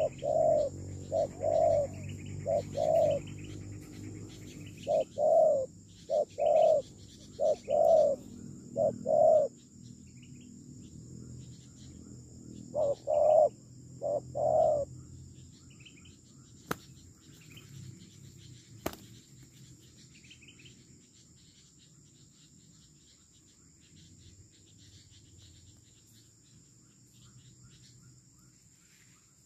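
Spotted doves cooing: short phrases of a few low coo notes repeated over and over, stopping about halfway through. A steady high insect drone runs behind them.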